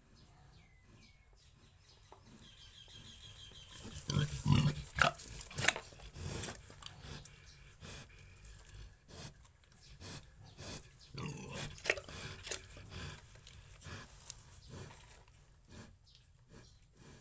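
Pigs grunting, with a quiet start and then an irregular run of short grunts and knocks beginning about four seconds in; the loudest cluster comes around four to six seconds.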